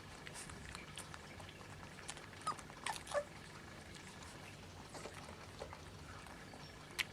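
Kleine Münsterländer puppies, 26 days old, giving a few short squeaks and whimpers midway through, among light scattered clicks and taps, with one sharp click near the end.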